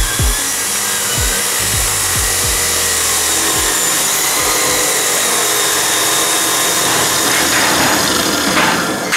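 A Bauer angle grinder runs with a fresh disc, grinding the ends of steel square tubing: a steady high whine over harsh grinding noise. Background music with deep falling bass hits plays under it for the first few seconds.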